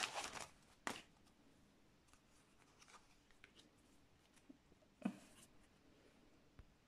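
Foil sticker packet crinkling briefly at the start as the stickers are pulled out, then faint handling of paper stickers, with a sharp tap about a second in and another about five seconds in.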